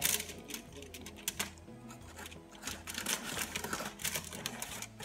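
Background music with a low bass line changing notes, overlaid by frequent sharp clicks and taps.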